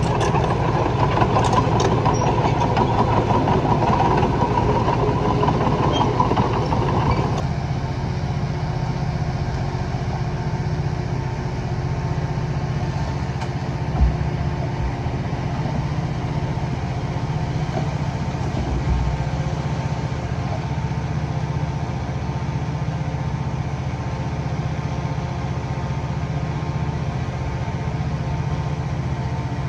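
Heavy earthmoving machine's engine working hard for about seven seconds, then dropping to a steady idle, with a single short knock about halfway through.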